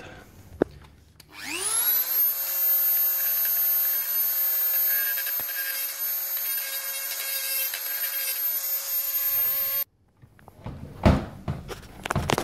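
Dremel rotary tool spinning up with a rising whine, then running at a steady high whine while grinding down a bent dishwasher door hinge so the door no longer catches on it. The whine cuts off suddenly, followed by a few knocks.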